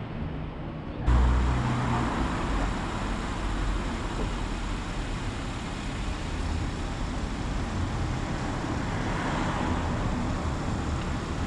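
Road traffic on a city street: a steady rumble and hiss of cars going by, which becomes suddenly louder about a second in.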